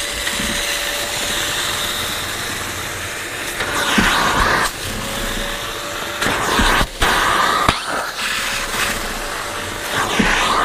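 Kärcher Puzzi 8/1C spray extractor's suction motor running with a steady whine, the clear upholstery hand tool drawn across a cloth seat and sucking up dirty water. The suction grows louder and hissier three times, a few seconds apart, with a brief dropout in the middle.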